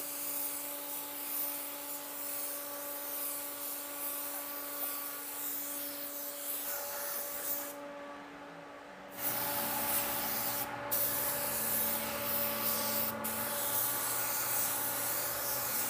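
Compressed-air paint spray gun hissing steadily as it sprays metallic automotive basecoat. The hiss stops for about a second and a half roughly halfway through, then resumes, with two brief breaks near the end.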